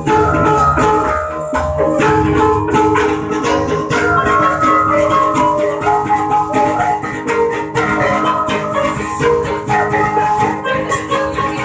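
Karinding ensemble playing: a bamboo flute melody over a strummed acoustic guitar, with quick rattling strokes of bamboo percussion running under it.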